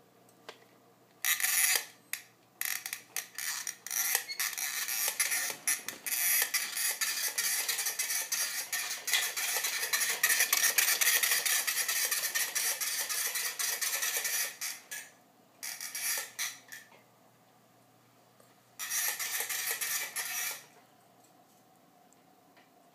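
A wheeled pull-toy dog with a shiny can-shaped body rattling and clattering as a puppy drags it across carpet. It starts about a second in and runs in a long stretch, then comes in two shorter bursts before stopping near the end.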